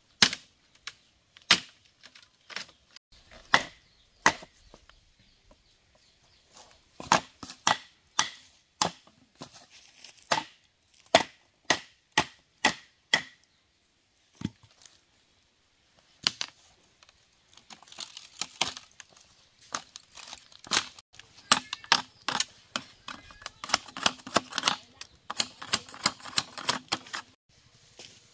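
Repeated sharp knocks, spaced about one or two a second at first, some ringing briefly, then quicker and closer together in the second half after a short pause.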